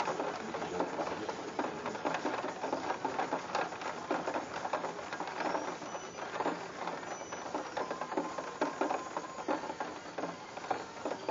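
Heavy rain falling hard: a dense, steady crackle of drops striking close by, with no thunder in it.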